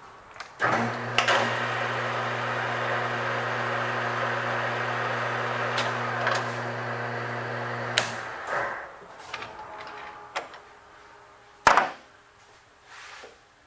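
Metal lathe started with the thin cast flywheel in the chuck: the machine runs with a steady hum for about seven and a half seconds, then stops. A few light clicks follow, then one sharp knock near the end.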